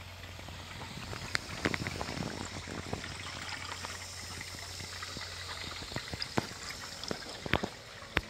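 Small electric automotive coolant pump running with a low steady hum, circulating water through a motorcycle's split-radiator cooling loop during a flow test. Water trickles through the system, and a few sharp clicks come through the hum.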